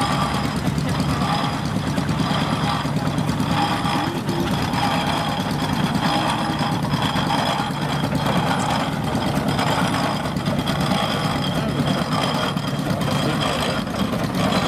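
Steam traction engine running as it drives slowly across a grass field, a steady low rumble.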